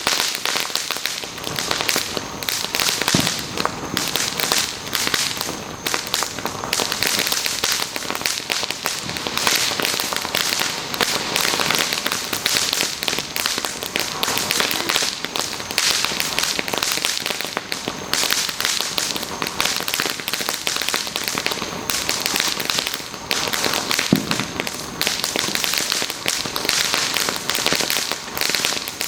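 Fireworks and firecrackers crackling and popping, a dense, unbroken rattle of small bangs with no pause.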